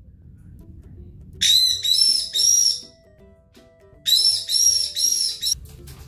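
White-bellied caique giving shrill screeching calls in two bursts, three short calls each, the second burst about two and a half seconds after the first. Soft background music runs underneath.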